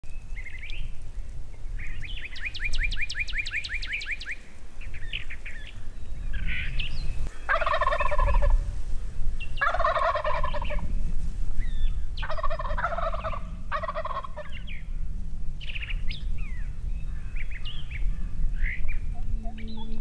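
A Rio Grande wild turkey gobbler gobbling from the roost, four gobbles about two seconds apart in the middle of the stretch. Small songbirds chirp throughout, with a fast trill about two seconds in.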